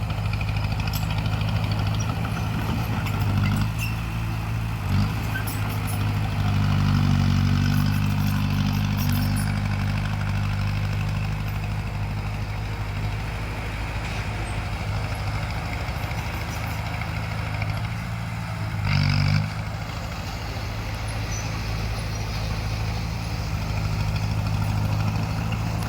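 Bulldozer's diesel engine running steadily under load. Its note strengthens for a few seconds near the start and surges briefly about three quarters of the way through, with faint metallic clinks.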